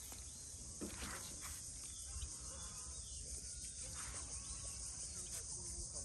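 Steady high-pitched insect chirring over a low outdoor rumble, with a few faint soft noises of someone moving through mud and shallow water.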